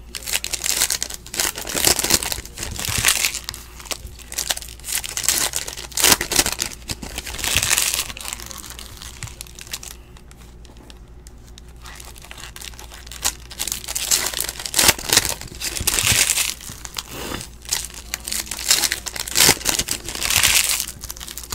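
Panini Ascension basketball card packs being torn open, their foil wrappers crinkling in repeated bursts as the packs are handled, with a calmer stretch near the middle. A low steady hum sits underneath.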